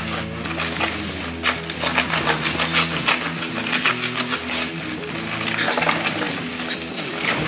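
Plastic courier mailer bag being torn open and crinkled by hand, in a dense run of sharp rustles and rips, over background music.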